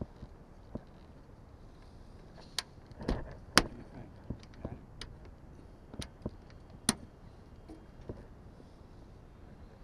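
Irregular sharp metallic clicks and knocks, about a dozen, the loudest about three and a half seconds in, from a spring panel latch on a Lake Buccaneer amphibian being worked and locked by hand.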